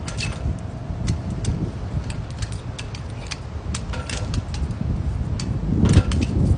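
Scattered sharp clicks and clinks on a metal flagpole while a man climbs it, with a louder cluster about six seconds in, over a steady low rumble.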